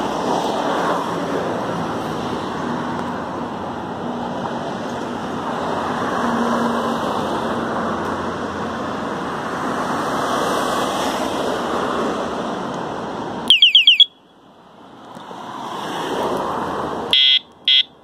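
Electronic handlebar bicycle horn sounding: a short, very loud burst of fast-warbling siren tone about three-quarters of the way in, then two short, loud high beeps near the end. A steady rushing noise runs beneath until the siren burst.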